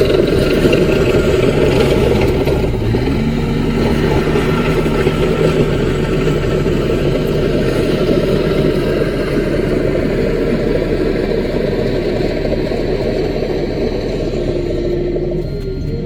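Small Caterpillar crawler bulldozer's diesel engine running steadily under work. Faint steady tones lie over it a few seconds in and again near the end.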